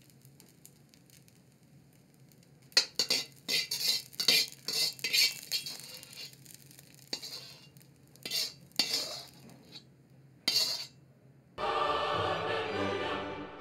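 Steel wok ladle scraping and clinking against the metal of a wok as fried rice is scooped and tipped out onto a plate: a run of sharp scrapes and knocks starting a few seconds in. Near the end, music starts.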